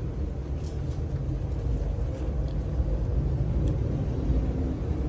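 A steady, low engine rumble runs throughout.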